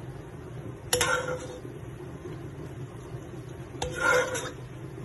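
Metal ladle clinking against the wok while spooning sauce onto the chicken adobo: two sharp clinks, each with a short ring, about a second in and again nearly four seconds in, over a low steady hum.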